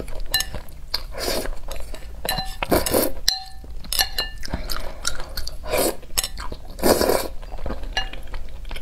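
Close-miked eating: several wet slurps of spicy instant noodles and chewing, with a few light clinks of chopsticks against a glass bowl around the middle.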